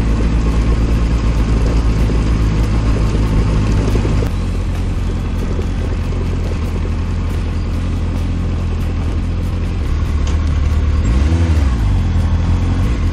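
Honda CBR600RR's inline-four engine running at low revs while the motorcycle rolls over a gravel track, with stones crackling under the tyres. The engine note drops about four seconds in, and near the end the revs briefly rise and fall again.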